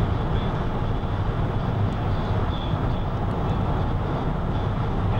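Steady road and engine noise heard inside a car cabin cruising at freeway speed.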